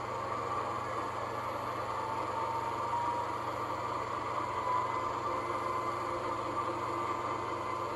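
Model O-gauge ES44AC diesel locomotive standing still with its onboard sound system playing a diesel engine idle: a steady rumble with a faint whine that rises slightly about two seconds in.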